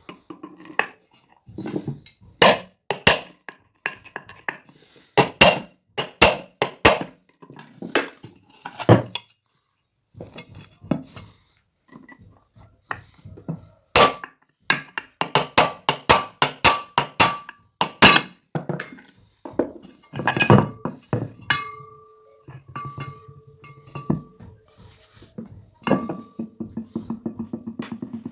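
Sharp metallic knocks and clinks from ceiling fan parts being tapped and handled during disassembly. They come in irregular clusters, some ringing briefly, with a fast run of light ticks near the end.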